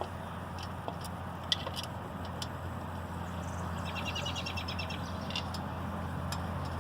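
Light clicks of small screws being started into an engine's top cover by hand, over a steady low hum. About four seconds in comes a brief, fast run of high ticks.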